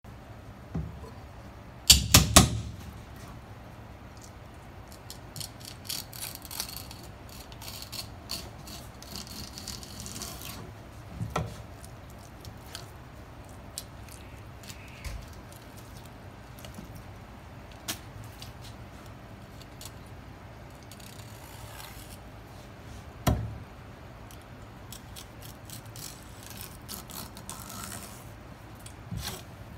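Knife work on a conger eel on a wooden cutting board as it is opened. There are three sharp knocks about two seconds in, stretches of soft scraping and slicing, scattered light clicks, and single knocks of the blade or fish on the wood, one near the middle and one later.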